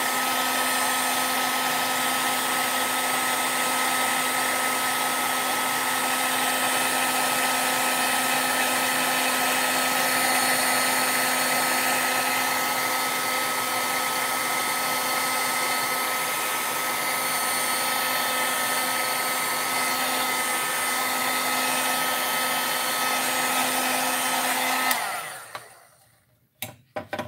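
Handheld craft heat tool blowing hot air steadily with a constant whine, drying wet aqua pigment on watercolour paper. It is switched off about 25 seconds in and runs down, followed by a couple of sharp clicks.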